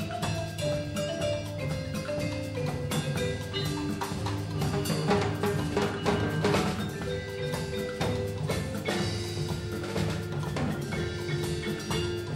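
Percussion music: a pitched mallet instrument plays a line of notes stepping downward over the first few seconds, over steady drumming with sharp wooden knocks throughout.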